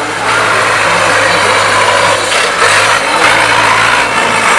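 Tractor diesel engine pulling hard under load up a muddy slope. It gets louder as the tractor comes close about a quarter second in, and its note dips slightly a little past halfway.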